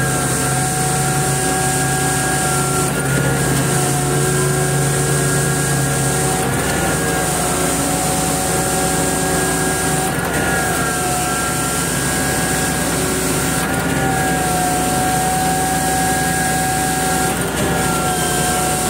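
Heavy truck engine running steadily, its pitch dipping briefly in a regular cycle about every three and a half seconds.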